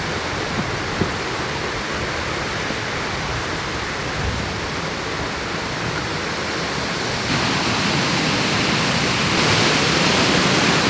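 Rushing creek water, a steady loud hiss that grows louder about seven seconds in.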